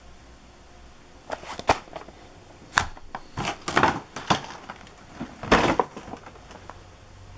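Handling noise as fireworks and their packaging are moved about: a run of sharp clicks, knocks and crackles over a few seconds, loudest about two seconds in and again near the end.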